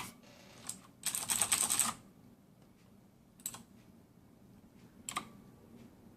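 Typing on a mechanical keyboard with clicky blue switches. A short burst of rapid keystrokes comes about a second in, followed by a few single, spaced-out key presses.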